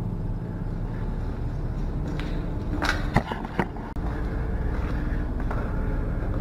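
Footsteps crunching and scraping on a gritty, debris-strewn concrete floor, a few sharp crunches clustered a couple of seconds in and again near the end, over a steady low rumble.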